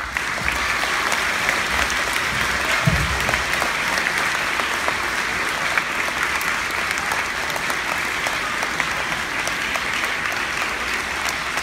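Audience of schoolchildren applauding, breaking out suddenly and then clapping steadily, with a single low thump about three seconds in.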